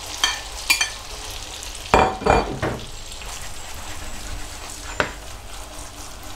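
Gnocchi frying in butter and sage in a frying pan, with a steady sizzle. A metal slotted spatula taps the pan twice near the start, and about two seconds in the pan is moved on the hob, giving a louder burst of scraping and sizzling.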